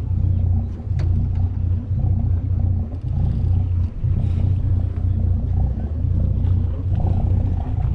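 Boat engine running steadily under way, a continuous low rumble.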